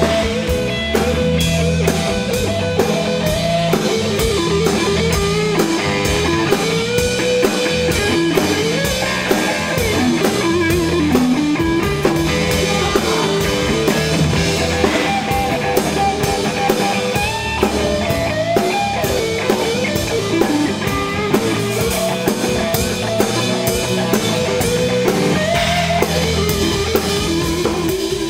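Rock music: electric guitar over a steady drum beat.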